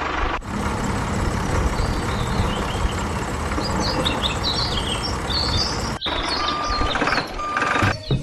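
Tractor engine running steadily with birds chirping over it. The engine sound breaks off briefly about half a second in and again around six seconds in, and two short beeps come near the end.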